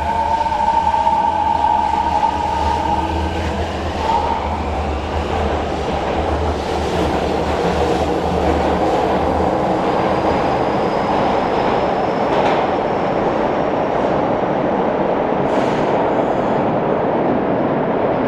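Kobe Municipal Subway 1000 series train with IGBT VVVF inverter control accelerating: the inverter whine, with several tones rising in pitch, fades out about four seconds in, leaving a steady rushing of wheels on rail as the train runs on. A faint thin high tone sounds in the later part.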